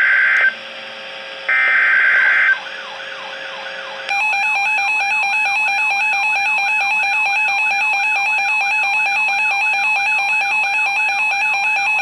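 NOAA Weather Radio emergency alert sequence. The end of one SAME digital header burst and a second full burst about a second and a half in, each a harsh buzzing data squawk, are separated by radio hiss. About four seconds in, a loud continuous alert tone begins, the attention signal that comes before the warning message.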